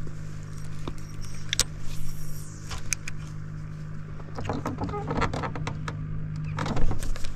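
A steady low hum of a small motor, with scattered sharp clicks and light knocks over it.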